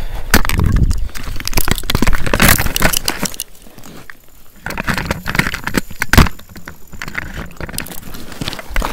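Handling noise from a camera being taken off and set down on rock: a run of rubbing, scraping and clicking against the microphone, quieter for a moment partway through, with a sharp knock about six seconds in.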